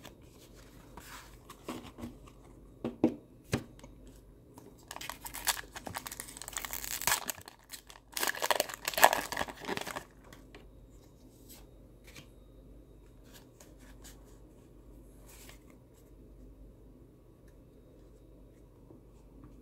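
Foil wrapper of a Pokémon trading-card booster pack being torn open and crinkled, in two stretches about five and eight seconds in, after a few light clicks of cards being handled.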